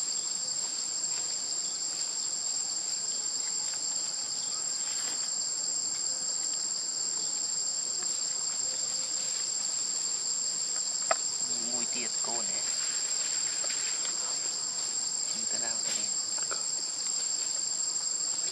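Steady high-pitched insect chorus, a continuous drone with a thin unbroken tone above it, and a single sharp click about eleven seconds in.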